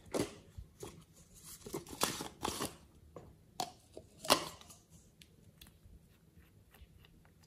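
Small plastic slime containers handled and opened: a series of plastic scrapes and clicks, the loudest a little over four seconds in, followed by a few faint ticks.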